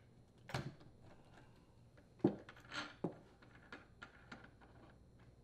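Faint, irregular metal clicks and light knocks from a socket driver and the metal clutch assembly of an Echo hedge trimmer as the old clutch is unthreaded from the crankshaft and lifted off by hand. The sharpest knock comes a little over two seconds in.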